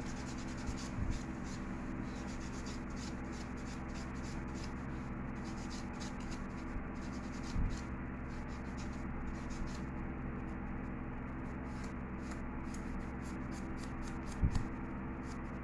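Nail file buffing toenails, rubbing back and forth in quick scratchy strokes, with a couple of brief thumps about eight and fourteen seconds in.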